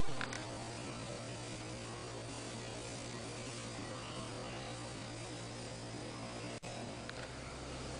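Steady low electrical hum over a constant hiss, broken by a momentary dropout about six and a half seconds in.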